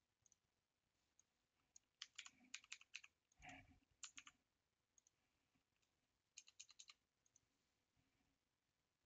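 Faint computer keyboard typing and mouse clicks in three short bursts of quick keystrokes, with one soft dull thump among them about a third of the way in.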